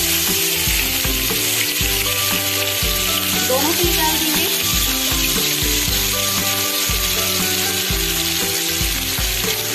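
Spice-and-gram-flour-coated fish pieces frying in smoking-hot oil in a pan, with a loud, steady sizzle just after they go in. Soft background music with a regular beat plays underneath.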